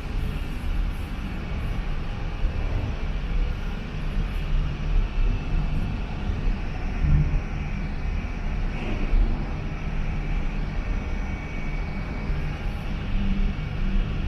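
Emulsifying and mixing machinery running steadily: a continuous rumble with a low hum and a faint high whine.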